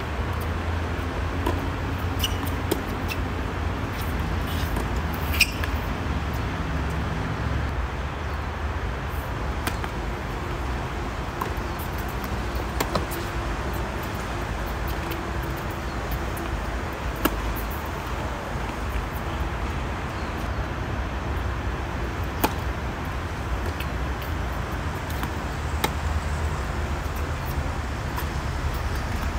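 Tennis racket strings striking a tennis ball during serves and groundstroke rallies: single sharp pops several seconds apart, the loudest about five seconds in. A steady low rumble runs underneath.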